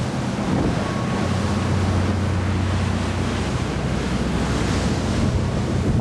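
High-speed passenger ferry under way: a steady low engine drone under the rush of water and wind, with wind buffeting the microphone.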